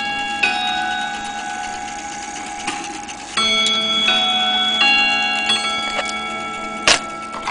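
Elliott mantle clock chiming: hammers strike its chimes one note at a time, and each note rings on and overlaps the next. A sharp click comes near the end.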